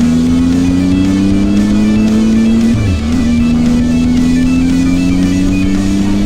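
Triumph Tiger 800 XRT's three-cylinder engine accelerating, its pitch climbing steadily, with a brief drop for a gear change about three seconds in before it climbs again. Guitar music plays alongside.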